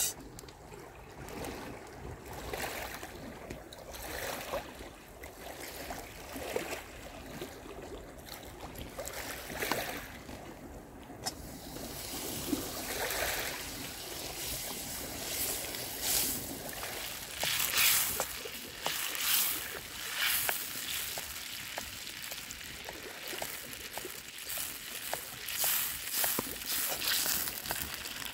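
Small sea waves washing over a pebble shore, coming in repeated hissing swells, with scattered light clicks and crackles from a small wood fire.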